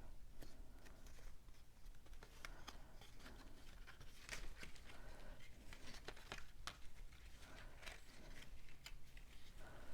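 Cardstock pieces being handled and pressed together by hand: faint rustling of paper with scattered light clicks and taps.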